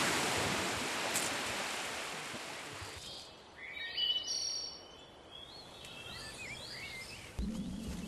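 Small waves washing on a sandy shore, a steady hiss that fades and drops away about three seconds in. Then birds calling in short rising and falling chirps.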